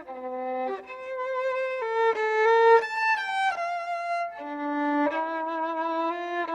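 Violin playing a slow melody in held notes, climbing to its highest notes about three seconds in, then stepping back down.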